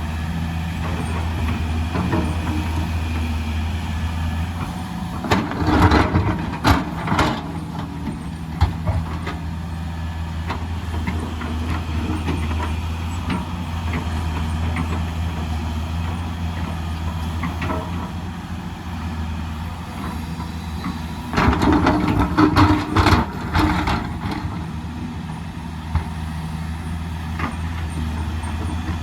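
Excavator's diesel engine running steadily under work, with two spells of loud clattering knocks, one about six seconds in and another about two-thirds of the way through.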